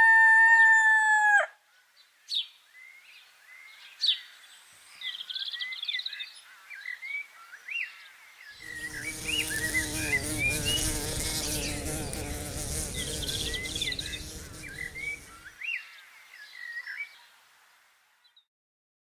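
The song's last held note cuts off about a second and a half in, then small birds chirp and twitter with short rising and falling calls. A louder, rougher stretch of farmyard noise joins them in the middle for several seconds, and all goes quiet near the end.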